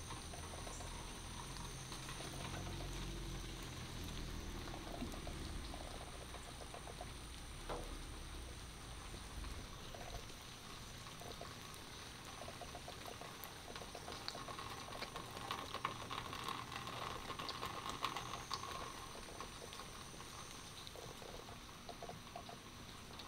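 Faint patter and trickle of rainwater dripping and running after a thunderstorm, with scattered small ticks that thicken about two thirds of the way through. A low rumble sits under the first half.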